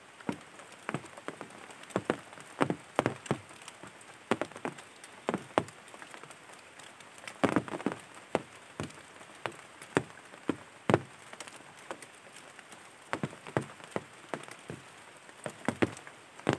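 Sparse, irregular sharp taps, like drops falling onto a surface, over a faint steady hiss.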